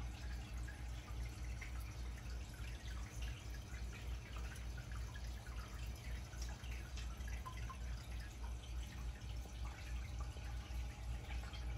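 Air-driven aquarium sponge filters bubbling: a steady run of small pops and drips from the air bubbles, over a low steady hum.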